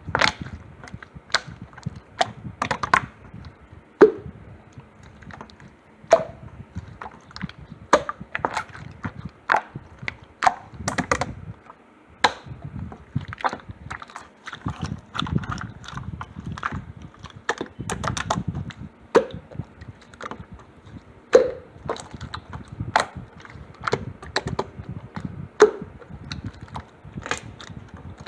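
Teal slime being squeezed and pressed by hand, giving irregular sharp pops and clicks, several a second, over soft squelching.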